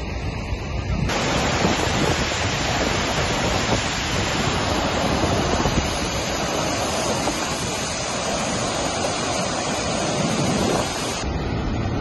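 Muradiye Waterfall in heavy spate from snowmelt: a dense, steady rush of falling water that starts abruptly about a second in and cuts off near the end. Lighter outdoor wind noise can be heard on either side of it.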